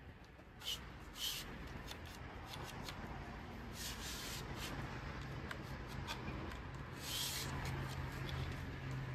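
Nail gun being handled and tried after a repair: rubbing and handling sounds with several short hisses, and a low steady hum that comes in about halfway.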